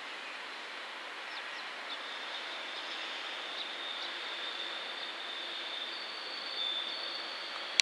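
JR Freight EF210 electric locomotive hauling Chiki flat wagons loaded with steel rails, approaching slowly on a curve: a steady noise of wheels on rail that slowly grows louder, with a thin high squeal from about two seconds in, joined by a second, higher tone near the end. One sharp click right at the end.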